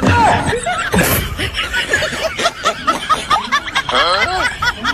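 People laughing, snickering and chuckling in quick repeated bursts, with some talking mixed in.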